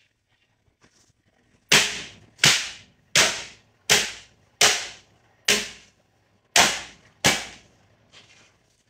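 Metal baking tray of piped macaron shells banged flat onto the worktable: eight sharp bangs starting about two seconds in, roughly three-quarters of a second apart, each ringing briefly. Rapping the tray this way knocks air bubbles out of the piped shells.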